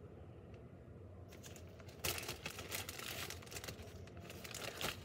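Thin plastic bag crinkling as hands dig into it, starting about two seconds in and carrying on as a busy, uneven crackle.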